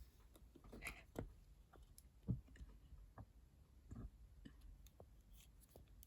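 Faint, scattered small clicks and taps of a plastic action figure and its accessories being handled, the sharpest about two seconds in.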